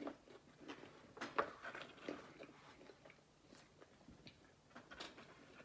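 Close-up chewing and biting of food, with irregular small clicks and crunches.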